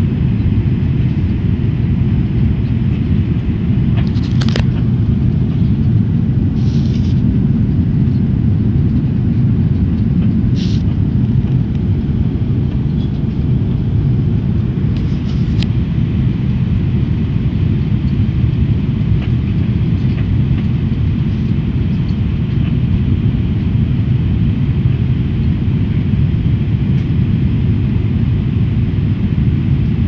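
Airliner cabin in flight through turbulence: a steady low rumble of jet engine and airflow noise, with a few short creaks and clicks from the cabin wall, four in the first half.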